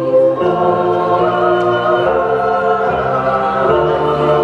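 Dramatic choral music: a choir holding long, sustained chords that shift every second or so.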